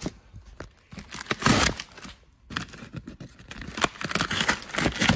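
Cardboard box being opened by hand: flaps pulled apart and clear packing tape torn, with crinkling and rustling. The loudest tear comes about a second and a half in, with a brief lull just after two seconds.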